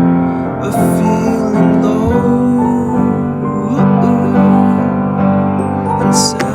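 Background music: a pop song's instrumental stretch with piano.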